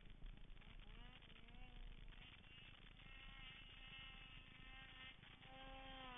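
Distant snowmobile engine revving, heard as a faint buzzing whine: it climbs in pitch about a second in, holds a high steady note through the middle, and climbs again near the end.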